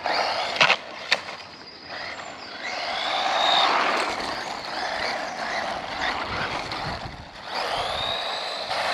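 Small electric RC car driving on asphalt: a whining electric motor over the hiss and rumble of its tyres. It pulls away twice, the whine rising in pitch each time it speeds up. A couple of sharp clicks come within the first second or so.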